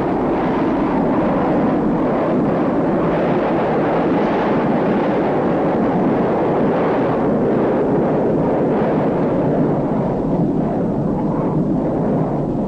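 Steady jet engine noise from a vertical take-off and landing aircraft.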